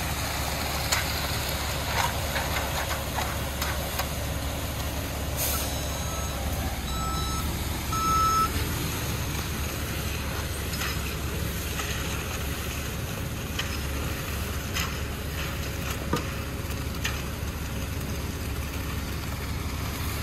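Concrete mixer truck's diesel engine running steadily as concrete slides down its chute, with scattered scrapes and clicks of hand tools working the wet concrete. A short hiss comes about five seconds in, and three short beeps follow a second or two later.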